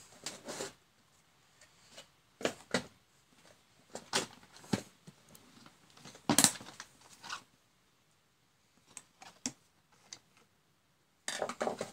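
Plastic DIN-rail electrical modules (a programmable relay, a motor protection switch, a contactor) being handled and set down on a workbench: a series of short knocks, clacks and scrapes, the loudest about six and a half seconds in and a quick flurry near the end.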